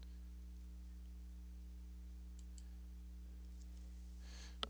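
Computer mouse clicking: a few faint clicks, then a sharper one near the end, over a steady low electrical hum.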